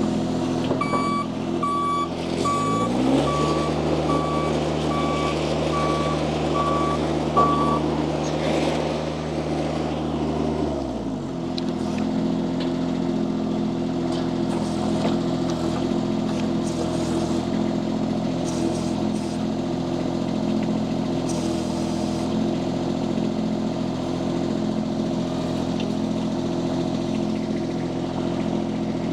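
Mini skid steer loader's small diesel engine running, with its reverse alarm beeping steadily for the first several seconds. About three seconds in, the engine revs up under throttle, holds high for about eight seconds, then drops back to a steady idle.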